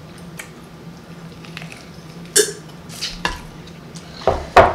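Close-up mouth sounds of a person chewing fried pork chop: soft wet chewing with a few sharp lip smacks. The loudest smacks come near the end.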